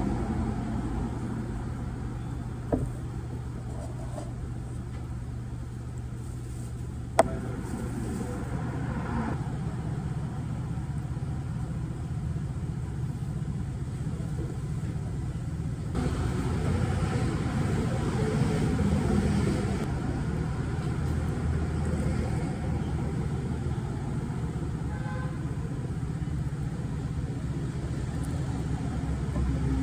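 Steady low rumble of road traffic passing the open shop front, with two sharp taps a few seconds apart early in the stretch.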